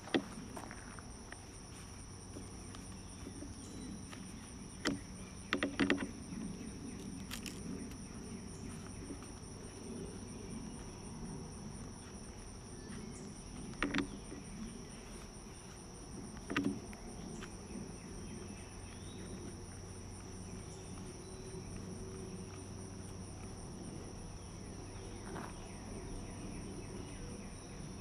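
Steady chirring of crickets and other insects. A few short sharp clicks and creaks come from steel pincers gripping and prying nails or metal tags out of an old wooden utility pole.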